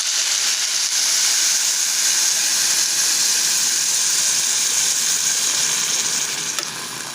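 Hot water poured into a pot of rice frying over the heat, hissing and sizzling loudly as it flashes to steam. The hiss eases off near the end.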